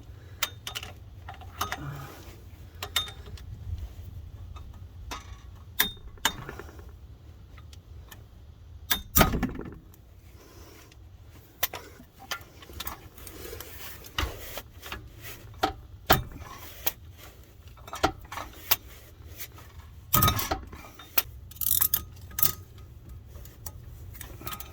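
Tools and metal parts being handled under a car: scattered light clicks and clinks, with louder knocks about nine and twenty seconds in, over a steady low hum.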